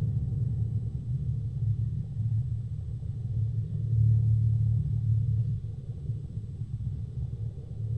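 A low, steady rumble that swells and eases, loudest about four seconds in.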